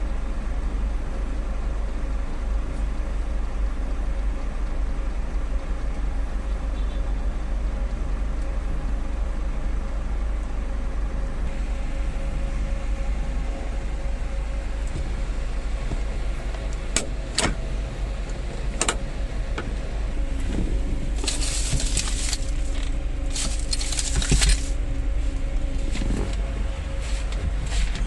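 Steady idling hum of a van's engine, with a few sharp clicks a little past the middle and several loud bursts of hiss in the last third.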